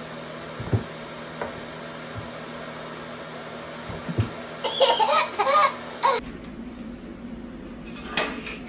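A baby laughing and squealing excitedly in a short run of high, wavering bursts about halfway through, over a steady low room hum with a few soft bumps before it.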